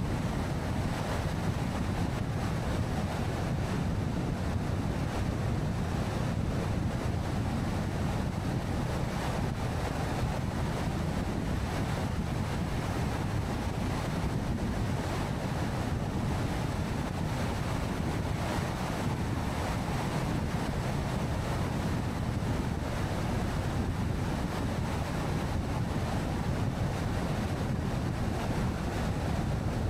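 Steady road noise from a car driving along: tyres and wind making a constant deep rush with no change in pace.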